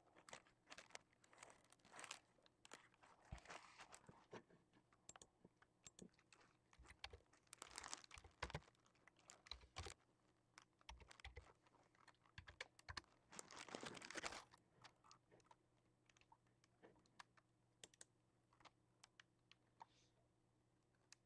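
Faint handling noise: scattered soft clicks and taps with a few short rustles of tissue paper, the loudest around eight and fourteen seconds in.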